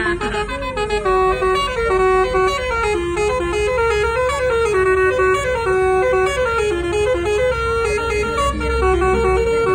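Bus telolet air horns worked by a Takur horn module, playing a fast melody of short, stepped notes that changes pitch several times a second.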